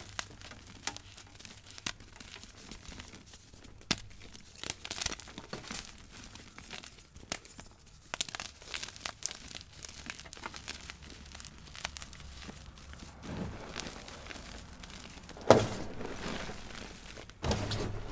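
Pasted gym chalk being crushed and crumbled by hand close to the microphone: a run of sharp, dry crackles and crunches, with two louder crunches near the end.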